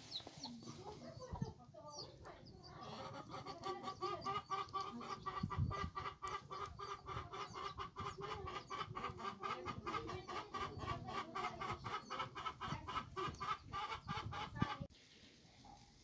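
Chickens clucking: a rapid, even run of clucks, about five a second, that stops abruptly near the end.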